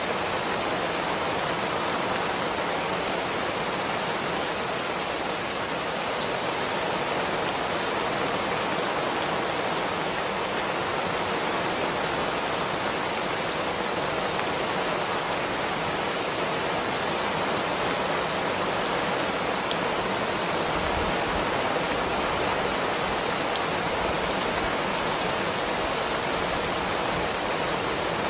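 Steady rainfall, an even hiss with no breaks.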